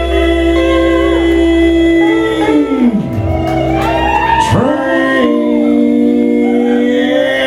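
Live country band playing with electric guitars and singing: long held notes that slide down in pitch about three seconds in and again a moment later.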